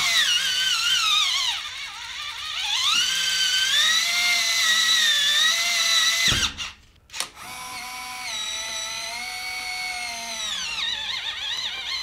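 Geared motor of a Nuki Smart Lock 2.0 turning the door's key cylinder on its metal mounting plate: a high, shrill whine whose pitch sags and rises as the gearbox comes under load, ending in a clunk about six seconds in. After a brief pause, a second run of motor whine follows, quieter, from the new Nuki Smart Lock 3.0.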